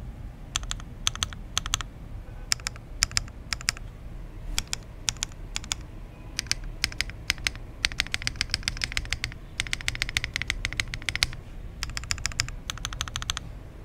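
Custom Oasis65 mechanical keyboard, built with no foam and fitted with Ghost Judges keycaps, being typed on for a sound test: separate keystrokes at first, then fast runs of clacking keys past the middle.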